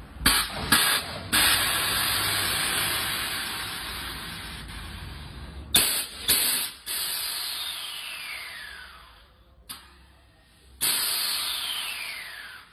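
Scania truck's air suspension hissing as its valves are worked by remote control: a few short puffs, then a long rush of air that fades away with a falling whistle, two sharp blasts in the middle, and a second long hiss near the end.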